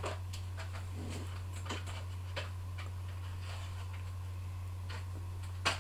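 A few irregular, sharp clicks from computer keys and mouse over a steady low electrical hum, the loudest click near the end.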